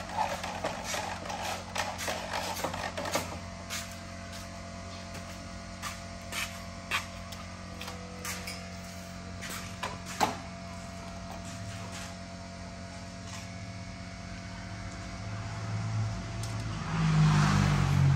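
Electric drill briefly driving a screw into the metal window-stay hardware on an aluminium window frame, followed by scattered clicks and clinks as the metal stay arm and frame are handled, over a steady low hum. Near the end a louder low rumble builds up.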